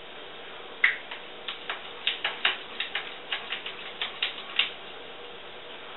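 Spatula clicking and scraping against a saucepan in an irregular run of light strokes, stirring shredded cheese into hot cheese sauce to melt it.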